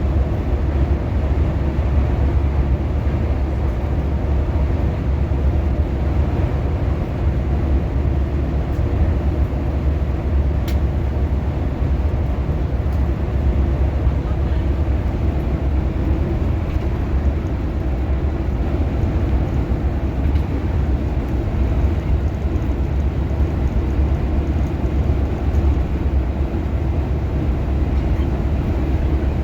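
Steady low rumble of a moving bus, heard from inside the cabin: engine and road noise, with one faint tick about eleven seconds in.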